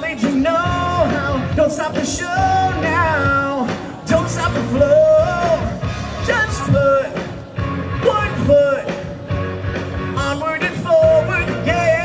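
A male singer sings a pop-rock show tune live into a handheld microphone over a PA, with instrumental accompaniment and a steady bass.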